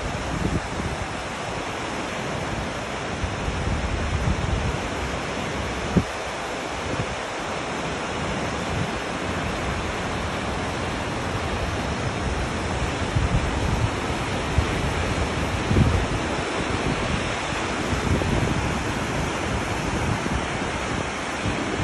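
Fast mountain river rushing over boulders in a steady roar of white water, with gusts of wind buffeting the microphone.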